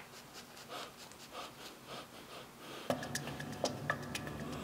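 A run of soft, quick breathy noises, then background music comes in about three seconds in.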